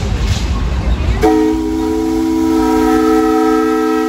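A steam launch's whistle sounds a chord of several notes at once. It starts suddenly about a second in over a low rumble and is held steady.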